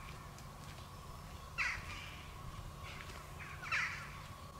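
A crow cawing: two short, harsh calls about two seconds apart, over a steady low rumble.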